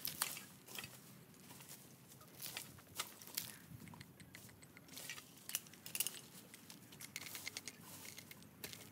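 Dry leaves and twigs crackling and rustling as they are scraped and raked together with a long-handled tool, in irregular strokes with sharp scrapes and knocks.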